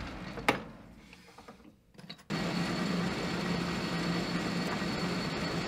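Metal lathe running with a steady hum while a twist drill in the tailstock is fed into the spinning workpiece. A click about half a second in, then the running sound dies away almost to quiet and comes back abruptly a little over two seconds in.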